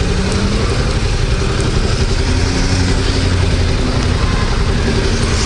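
2018 Yamaha MT-07's 689 cc parallel-twin engine running steadily at low revs.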